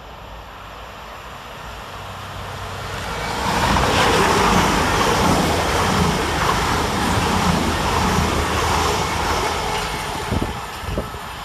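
A pair of CrossCountry Class 220 Voyager diesel-electric trains passing through a station fast, with underfloor engines and wheels on rail. The noise builds over the first few seconds, is loudest for about six seconds as the train goes by, then fades as it draws away.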